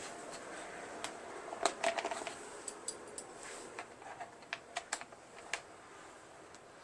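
Scattered light clicks and taps of plastic and metal chainsaw parts being handled during disassembly, busiest about two seconds in and sparser near the end.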